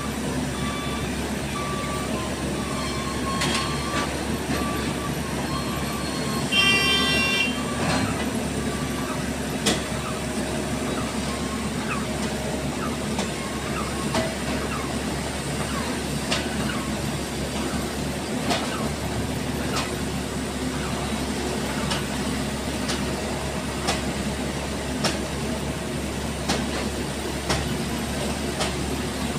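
Heavy diesel engines running steadily as a tipper truck with its hydraulic dump body raised unloads. A reversing alarm beeps repeatedly during the first few seconds, a short horn toot sounds about seven seconds in, and sharp metallic knocks come now and then.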